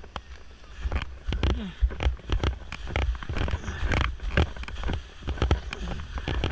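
Skis sliding and scraping over packed spring snow on a downhill run, with many irregular knocks and a low wind rumble on the microphone.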